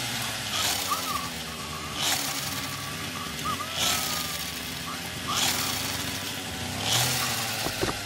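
Motorized saw sound effect: a steady engine-like drone with a buzzing surge about every one and a half seconds, for a toy circular-saw arm cutting into a tree trunk.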